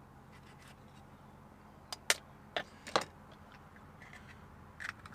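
An egg being cracked on the rim of a bowl: a few sharp taps and shell clicks about two to three seconds in, over a low steady hum.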